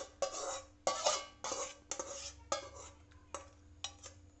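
Metal kitchen utensils clattering: a run of sharp knocks and clinks with a ringing tail, roughly two a second, growing fainter in the second half.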